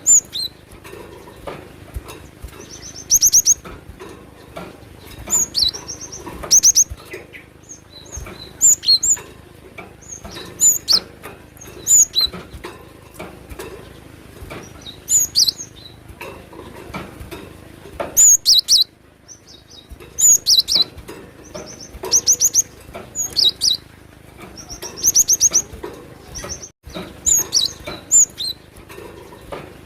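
Cinereous tit (glatik batu) singing: short phrases of rapid, high, ringing notes, repeated every second or two.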